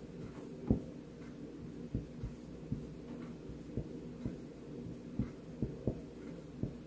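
Dry-erase marker writing on a whiteboard: about a dozen soft, irregular taps and short strokes as the pen tip meets the board, over a low steady hum.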